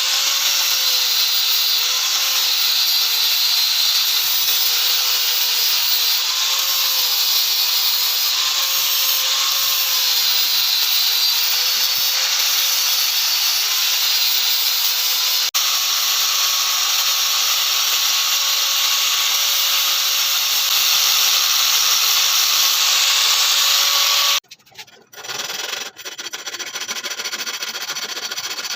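An electric power tool running steadily under load, with abrasive rubbing against the workpiece, stopping abruptly about 24 seconds in. Quieter, intermittent rubbing follows.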